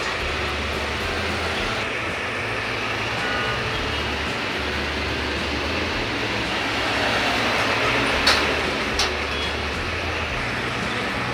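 Steady roadside traffic, swelling as a large vehicle passes about seven to eight seconds in. Two sharp knocks about a second apart come near the loudest point.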